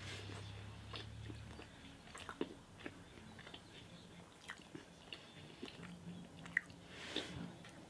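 A person chewing a piece of dark chocolate with the mouth closed: faint, irregular wet mouth clicks and smacks, with one sharper click about six and a half seconds in.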